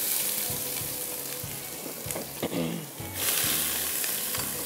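Chopped onion sizzling as it hits hot oil with whole spices in a wok, a steady hiss that grows louder about three seconds in as it is stirred with a spatula.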